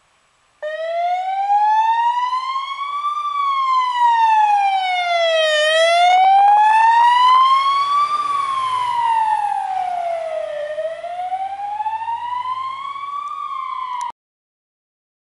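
Fire engine's siren on a slow wail, rising and falling in long even sweeps about every two and a half seconds. It is loudest as the truck passes close by, when its engine is faintly heard under it, and it cuts off suddenly near the end.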